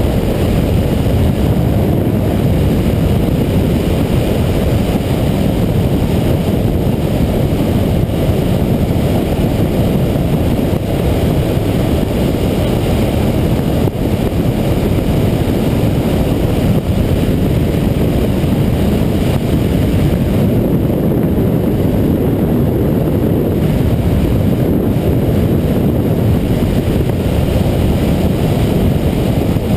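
Yamaha MT-09 Tracer's three-cylinder engine running at speed under a steady rush of wind on the microphone, without a break.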